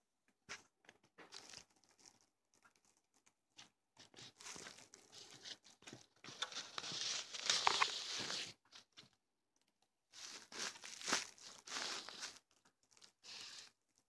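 House mouse gnawing at the bait on a wooden snap trap, a crunching, crinkly scratching that comes in irregular bursts with small clicks. It is loudest in a long stretch through the middle and again a few seconds before the end.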